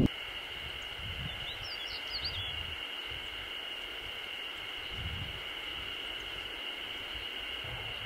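A Stejneger's stonechat sings one short, quick phrase of high, scratchy gliding notes about a second and a half in, over a steady high-pitched drone.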